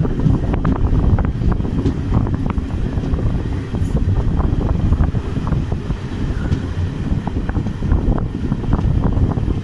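Passenger train running on the line, heard from aboard: a steady low rumble of wheels on rails with irregular clicks and rattles, and some wind noise.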